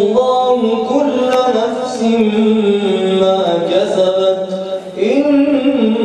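A man chanting Quranic verses in Arabic in a slow, melodic style, holding long wavering notes. There is a short pause for breath about five seconds in, then a new phrase starts.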